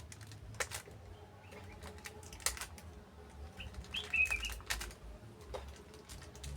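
A metal spoon clicking and knocking against a drinking-chocolate tin and cup as cocoa is spooned in: a few separate sharp clicks over a low steady background rumble. A bird chirps briefly about four seconds in.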